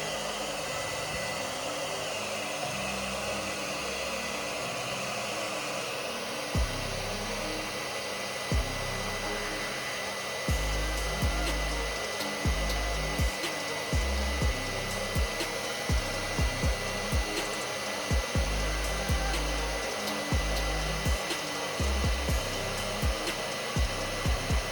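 Hair dryer blowing steadily to melt the ice built up in a Samsung RF267 refrigerator's freezer section. Background music with a beat comes in partway through.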